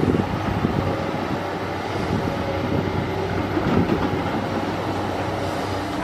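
Diesel engines and hydraulics of two working crawler excavators, a Kobelco SK200 and a Komatsu PC200, running under load: a steady low drone with an irregular rattling clatter over it.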